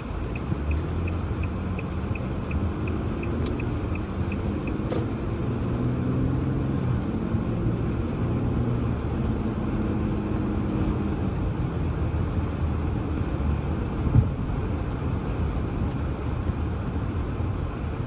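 Car engine and tyre rumble heard from inside the cabin as the car pulls through an intersection and picks up speed, the engine's pitch rising over the first several seconds and then holding steady. A turn signal ticks about three times a second for the first four seconds or so, then stops. A single sharp thump sounds about fourteen seconds in.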